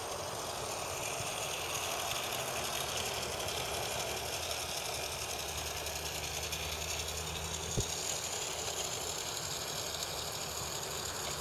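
Tri-ang Big Big Blue Flier toy diesel locomotive running along track: the steady whirring of its small motor and running gear on the rails, with one sharp click about eight seconds in.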